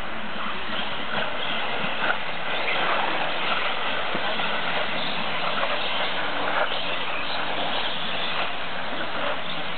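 Electric 4WD off-road RC buggies racing, their brushless motors and tyres making a steady rushing, hissing noise with brief louder swells as cars pass.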